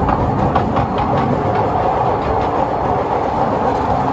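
Miniature steam railway train running along its track, with the passenger car riding behind the locomotive: a steady rolling rumble with quick, regular clicks in the first second or so.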